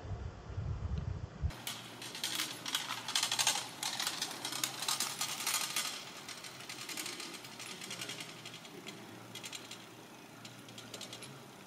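A fast, dense clatter of sharp mechanical clicks that starts abruptly about a second and a half in, is loudest over the next few seconds, then thins out.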